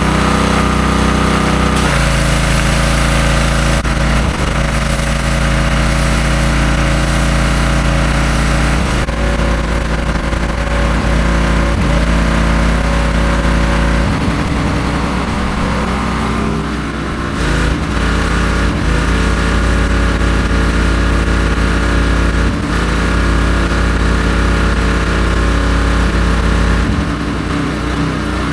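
Gas pressure washer's small engine running steadily under a hiss. The sound shifts abruptly several times.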